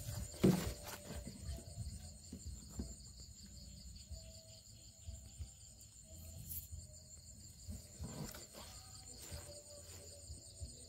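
Chorus of night insects trilling steadily at a high pitch, with a few soft knocks and rustles, the loudest about half a second in.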